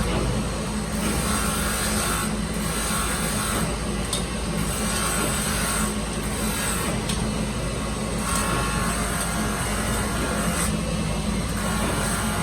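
Electric finishing (grinding) wheel running with a steady hum while a welded metal rod is pressed against it in repeated passes, each pass a rising hiss of about a second.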